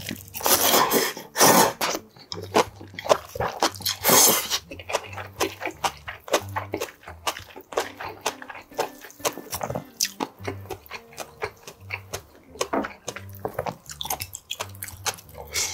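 A man slurps seaweed bibim noodles, with loud slurps about half a second in, at a second and a half and at about four seconds. Between and after them come wet, smacking chewing sounds with many small clicks.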